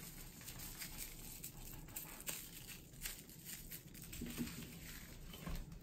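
Faint crinkling and rustling of plastic cling film as hands squeeze and pick up wrapped balls of dough.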